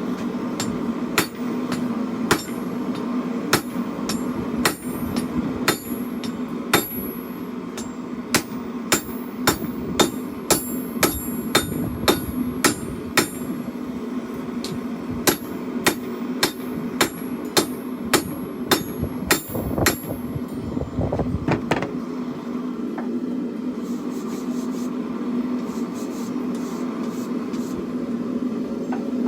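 Hand hammer striking hot steel on an anvil while forging a chopper blade, in quick ringing blows of about one to two a second, over the steady roar of a propane forge burner. The hammering stops about two-thirds of the way through, leaving the burner running.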